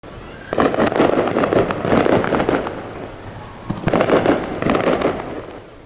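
Fireworks crackling in two dense spells of rapid pops, the first about half a second in and the second near the middle.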